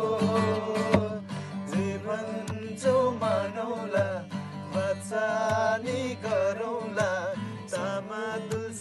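Acoustic guitar strummed while several men sing along.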